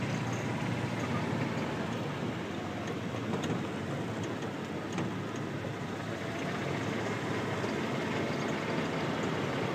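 A vehicle's engine running steadily during a slow ride, with a couple of light clicks around the middle.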